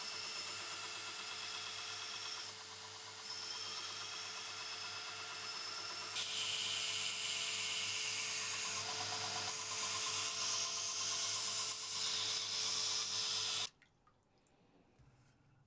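Belt grinder running, its abrasive belt grinding the steel of an axe head; the grinding dips briefly about two and a half seconds in and grows louder about six seconds in. It cuts off sharply near the end, leaving near silence.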